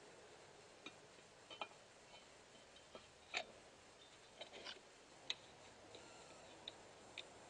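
Faint, scattered light clicks and taps as chainsaw parts are fitted by hand on a bench, with a socket wrench going onto a nut near the end.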